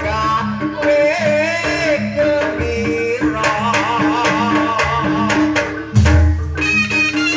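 Live jaranan ensemble music: Javanese hand-drum strokes over sustained gong-like tones, with a wavering melody on top. The drumming gets busier about halfway through.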